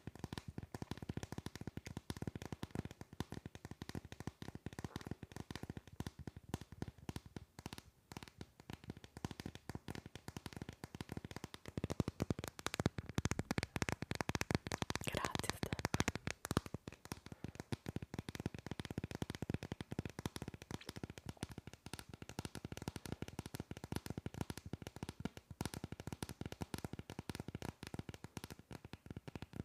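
Fingernails tapping and scratching quickly on a hard plastic phone case held right against the microphone, a dense stream of small clicks. It grows louder for a few seconds around the middle.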